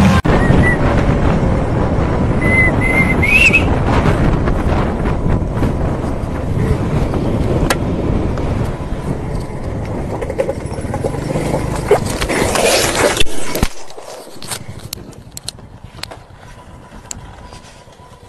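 Wind and road rush from riding on a motorcycle, with a few short high tones in the first few seconds. About two-thirds of the way through the rush stops abruptly, leaving quieter roadside sounds with scattered clicks.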